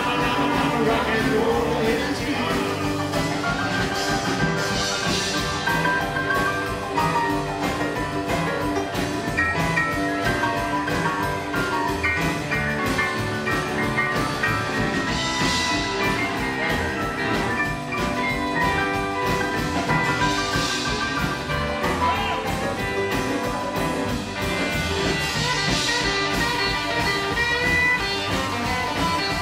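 Live rockabilly band playing an instrumental break without vocals: electric and acoustic guitars, upright double bass, keyboard and drums keeping a steady driving beat, with cymbal crashes several times.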